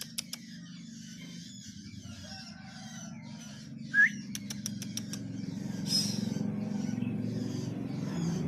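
Long-tailed shrike (cendet) singing a rapid run of high chirps, with a sharp rising note and a quick string of clicks about four seconds in. A low rumble underneath grows louder toward the end.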